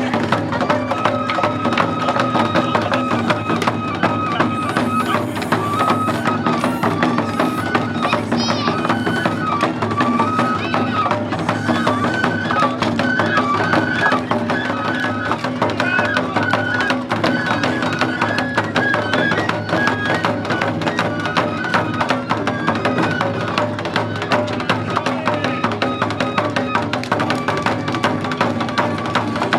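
Japanese festival music for a shishimai lion dance: fast, steady drumming with a high melody line stepping from note to note above it.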